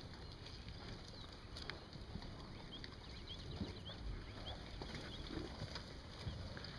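Faint field ambience: a low, uneven wind rumble on the microphone with scattered soft clicks, and a string of short high chirps from small birds around the middle.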